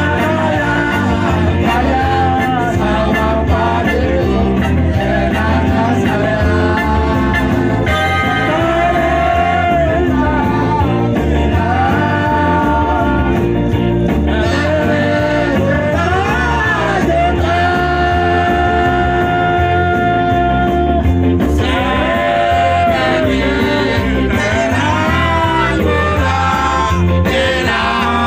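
Loud dance music with a steady beat and a voice singing the melody, played over a sound system for group dancing.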